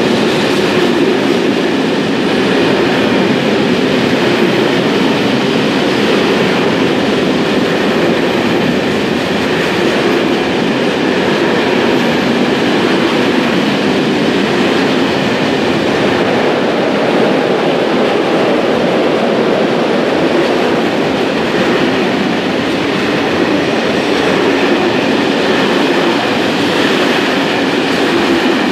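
Freight train of tarpaulin-covered wagons rolling past at speed, a loud, steady noise of wheels on rails.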